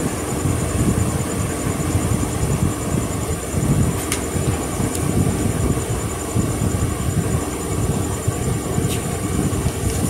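Steady low rumbling background noise with a faint hum. Two short paper rustles, about four and nine seconds in, as pages of a printed exam paper are turned.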